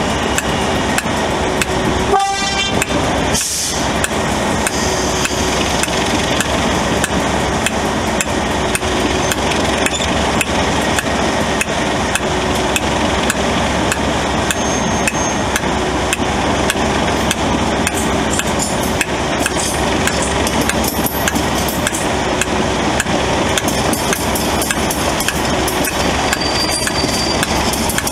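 Class 37 diesel-electric locomotive's English Electric twelve-cylinder engine running, heard close from alongside, with a steady engine note over dense clatter from wheels and track. There is a short high-pitched note about two seconds in.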